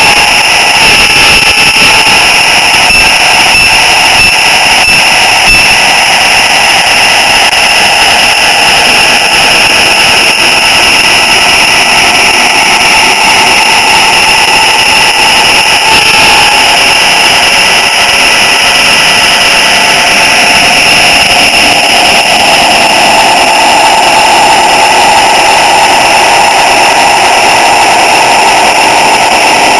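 Model train running, heard close up from on board: a steady, loud whine and hiss from the locomotive's electric motor, gearing and wheels on the rails, with several steady high-pitched tones. A few light clicks come in the first seconds as the wheels cross turnouts.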